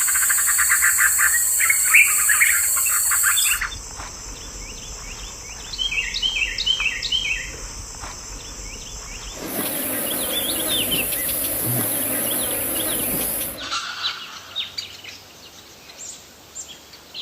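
Wild birds chirping and trilling over a steady high insect drone, in several spliced nature recordings that change abruptly about four, nine and a half, and fourteen seconds in.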